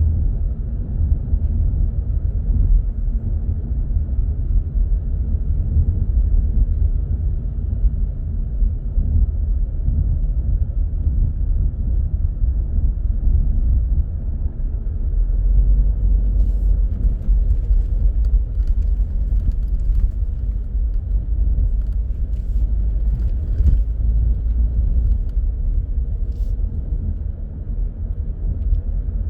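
Car driving through city traffic: a steady low rumble of engine and tyres on the road, with a few faint clicks in the second half.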